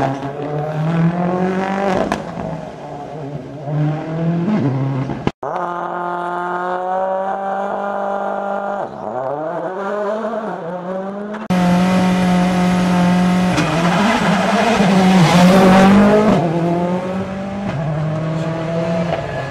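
Rally cars driven hard on a stage, in three short clips joined by abrupt cuts. Engine pitch climbs and drops with each gear change and brake for a corner. In the last clip the car gets louder and noisier as it comes close, then its pitch falls as it passes.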